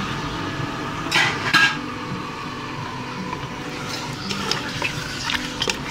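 Raw chicken pieces frying gently in warm oil in a steel pot, with a spatula clinking and scraping against the pot; the sharpest clinks come about a second in.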